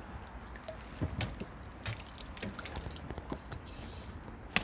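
Small irregular splashes and drips of water as a hooked crucian carp is played at the surface and drawn into a landing net, with a sharp knock near the end.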